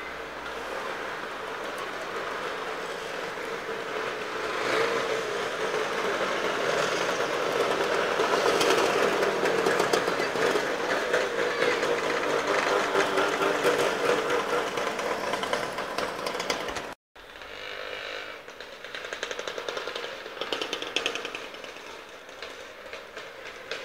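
A group of classic two-stroke motor scooters riding past together, their small engines buzzing and rattling in a dense, overlapping drone. It grows loudest around the middle, cuts out for an instant about two-thirds of the way through, then carries on quieter.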